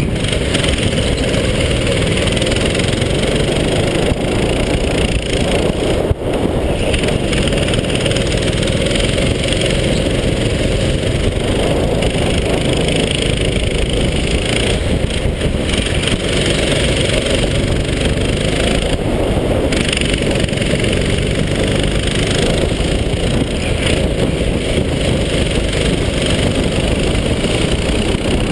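Go-kart engine running hard at racing speed, loud and continuous, its sound swelling and easing every few seconds as the driver works the throttle through the corners, with another kart's engine running just ahead.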